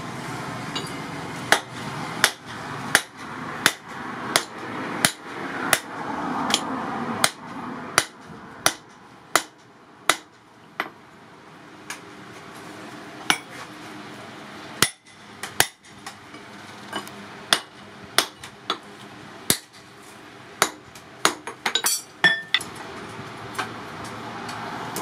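Hand hammer striking the top of a long steel tool held on red-hot steel over a small steel anvil, a sharp metallic clink with each blow. The blows come steadily about one and a half a second, pause briefly about eleven seconds in, then resume less evenly, with a quick flurry near the end.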